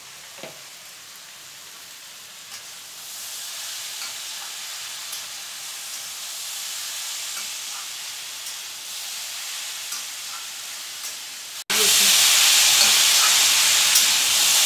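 Kochur loti (taro stolons), potatoes and prawns sizzling in oil in a kadai while a spatula stirs them, with a few faint ticks. The sizzling swells about three seconds in, then jumps suddenly much louder near the end.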